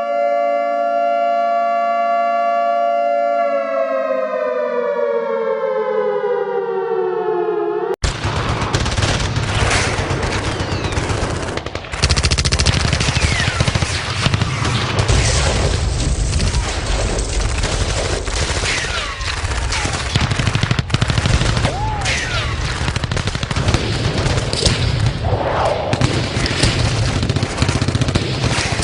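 Civil defense siren holding a steady wail, then winding down in pitch, cut off abruptly about eight seconds in by dense gunfire: a rapid, continuous barrage of shots, which gets louder about four seconds later.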